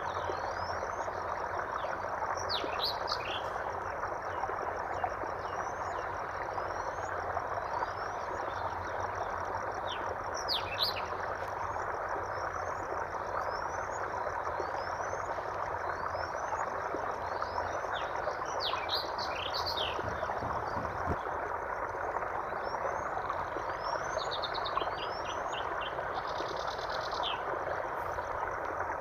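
Steady rush of running water, with birds chirping over it: a short rising chirp repeats about every second and a half, and louder bursts of calls come now and then.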